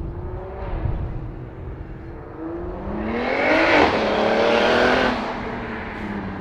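Single-turbo BMW 335i straight-six (N54) with a 3.5-inch single exhaust, running with a low rumble at first as it approaches, then accelerating hard about two and a half seconds in. The note climbs, drops at a quick upshift, and climbs again before easing off near the end.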